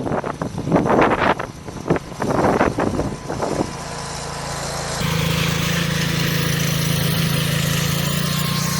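Irregular rough bursts of noise for the first few seconds, then a garden tractor's engine running steadily at an even speed.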